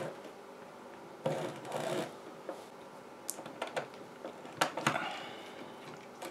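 Small Torx screwdriver turning screws and knocking against the metal and plastic suspension link mounts of an RC truck chassis: scattered sharp clicks and taps, several in the second half, with a brief scraping rustle about a second in.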